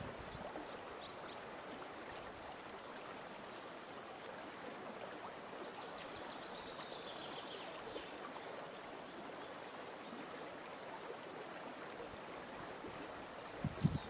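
Steady rushing of a fast-flowing river current over its shallows. A small bird chirps faintly near the start and again in a short falling run about six seconds in.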